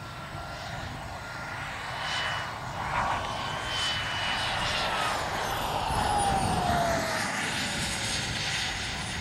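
Turbine-powered RC model jet making a low fly-by: a steady turbine whine and rush that grows louder as it approaches, its whine sliding down in pitch as it passes, loudest a little past halfway, then easing off.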